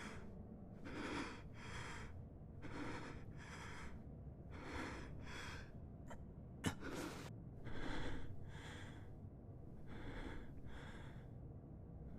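A person breathing heavily and rhythmically, a breath roughly every second, with a single sharp click about two-thirds of the way through.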